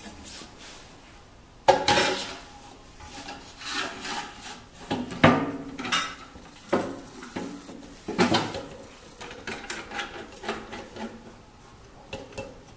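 Aluminium screen frame being handled and fitted into the clamp of a manual screen printing press: irregular metal knocks, clanks and scraping, several sharp ones spread through.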